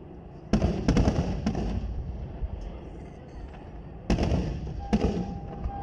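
Aerial firework shells bursting: a sudden cluster of booms and crackles about half a second in, then another loud burst a little after four seconds in, over a low rumble. A steady single tone starts near the end.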